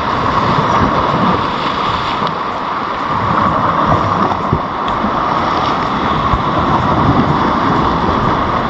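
Steady wind buffeting the microphone over breaking surf, a continuous rushing noise.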